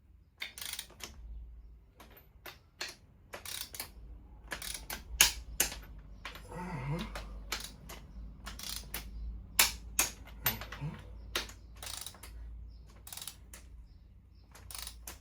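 Ratchet wrench clicking in irregular bursts of strokes as an engine bolt is tightened down to 40 N·m.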